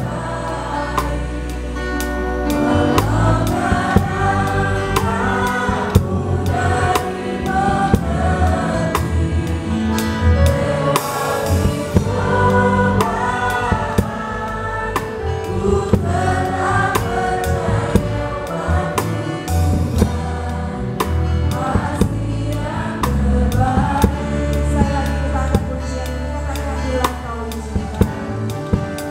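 A gospel worship song sung by women's voices over keyboard and guitar accompaniment, with a steady beat.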